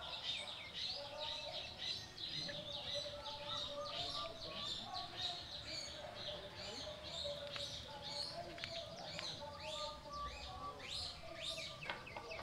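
Small birds chirping continuously, with many short high chirps each second, over lower warbling calls.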